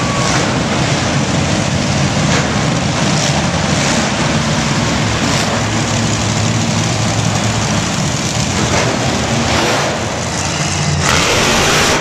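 Loud, steady running of motorsport engines at a monster truck show: a low engine drone under a constant wash of noise.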